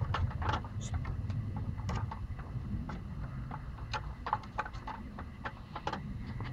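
Two puppies playing through a wooden fence: quick, irregular scratches and taps of paws against the slats and paving, with a low wind rumble on the microphone.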